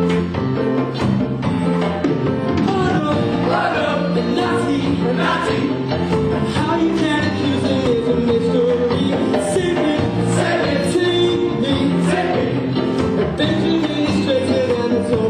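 Song from a stage musical: singing over instrumental accompaniment with a steady beat.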